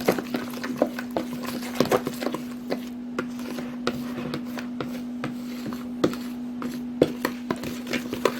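A yogurt-and-spice marinade being stirred and mixed by hand, with irregular clicks and knocks of the utensil against the bowl, over a steady low hum.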